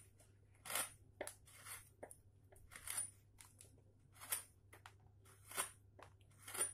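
A hand-pushed woodcarving chisel making a series of short, faint cuts into wood, about one a second, as it carves the ends of fur strands on a relief.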